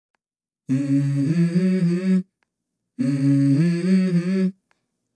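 Background music: a wordless hummed vocal melody in two phrases of about a second and a half each, with short silences between and no beat.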